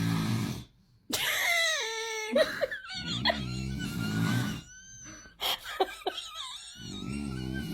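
A person snoring loudly, three long low snores a few seconds apart, with high-pitched laughter between them.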